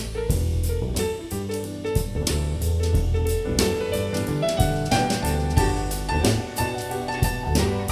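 Soul jazz instrumental with piano, a walking bass line and drum kit keeping a steady beat, played back through in-ear monitors.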